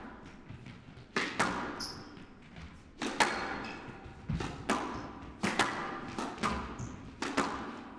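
Squash rally: the ball cracking off rackets and smacking the walls, often in quick pairs, about one strike a second, each echoing briefly, with a couple of short high squeaks of court shoes.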